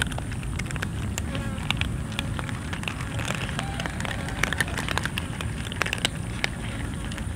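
A group of cats crunching dry kibble from a metal tray: a dense, irregular run of small sharp cracks and clicks over a steady low rumble.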